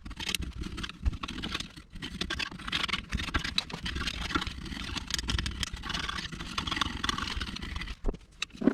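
A motor running, its level rising and falling unevenly, dropping off shortly before the end.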